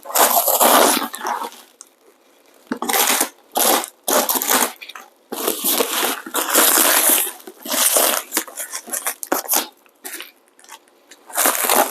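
Plastic packaging wrapper being pulled and crumpled by hand, rustling and crinkling in irregular bursts with short pauses.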